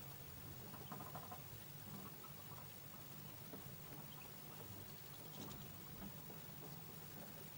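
Faint quick tapping and ticking of bullfinches pecking at sunflower seeds in a plastic feeder tray, in short clusters, over a steady low hum.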